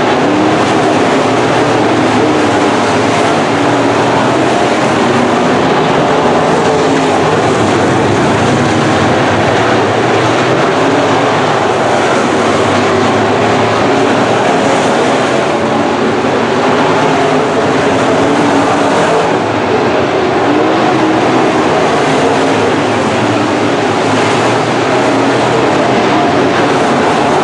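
A pack of IMCA Modified dirt-track race cars at racing speed, their V8 engines running loud and steady, the engine notes rising and falling as the cars go around the track.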